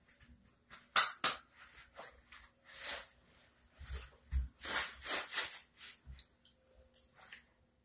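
Scattered rustles and a couple of sharp clicks from a person shifting and pulling against soft wrist restraints strapped to a waist belt: fabric and strap noise. The rustling is densest in the middle.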